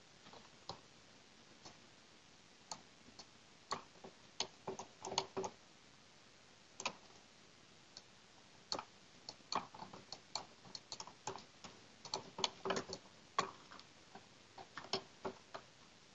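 Computer mouse clicking: sharp, irregular clicks, some in quick pairs, sparse at times and coming in rapid runs in the middle stretch.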